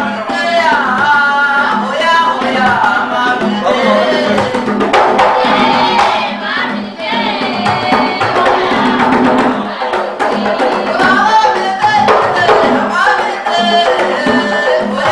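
Somali niiko dance music: a hand drum keeps a steady beat under singing voices.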